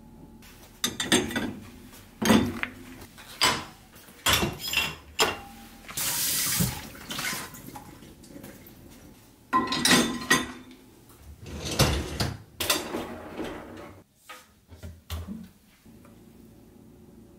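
Dish-washing sounds: dishes, a pan and the dishwasher's wire racks clattering and knocking in a string of separate hits, with a short rush of running tap water about six seconds in.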